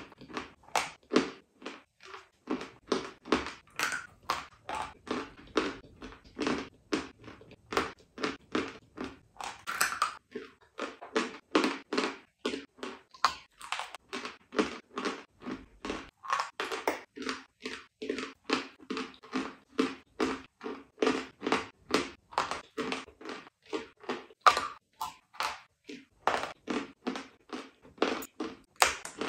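Lumps of white edible chalk being chewed close to the microphone: a continuous run of dry crunches, about two or three a second.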